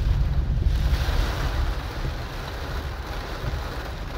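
Rain drumming on a car's roof and windshield, heard from inside the cabin over a low road and engine rumble; the rain hiss grows louder about a second in.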